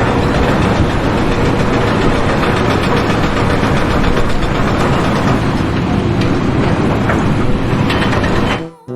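Loud, steady machinery running, with scattered faint clicks, cutting off sharply about eight and a half seconds in.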